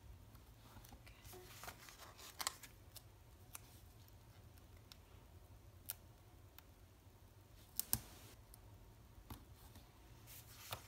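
Faint paper rustling with scattered sharp clicks and crackles as stickers are peeled from a sticker sheet and pressed down onto planner pages, the loudest crackles about two and eight seconds in.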